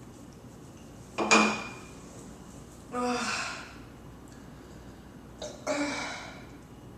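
A woman burping three times, each burp short and loud, about two seconds apart, the first the loudest.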